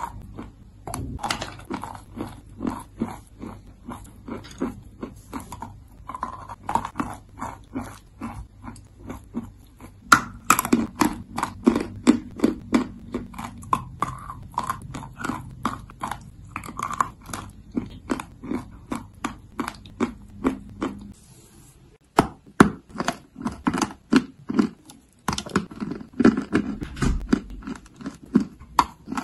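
Close-up chewing and crunching of dry chunks of chalk in the mouth, a steady run of crisp crunches about two or three a second.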